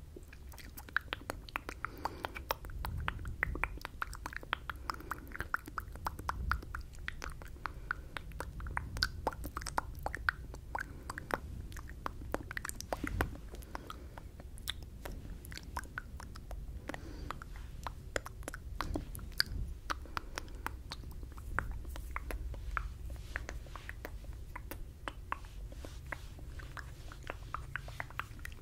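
Close-miked mouth sounds of inaudible whispering: a dense, irregular run of wet mouth clicks and lip smacks, several a second, over a low rumble.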